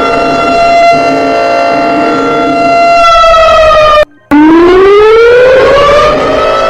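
Civil defense siren sounding at a steady pitch, sagging slightly, then cutting out briefly about four seconds in and winding back up over about two seconds to its steady pitch.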